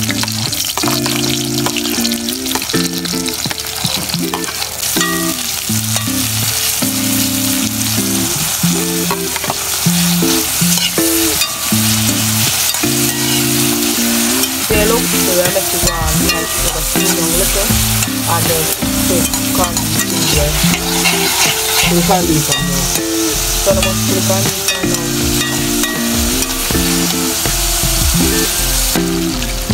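Chopped onion, tomato, cabbage and sweet pepper sizzling in hot oil in a pot, stirred now and then as the cabbage cooks down.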